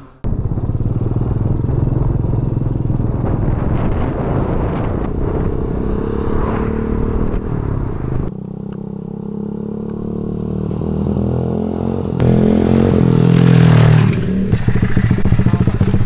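Motorcycle engine running on the move, with wind and road noise. The sound changes abruptly about eight and twelve seconds in and is loudest in the last few seconds.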